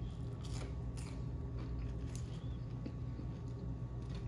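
Chewing a forkful of food, with scattered faint clicks, over a steady low hum.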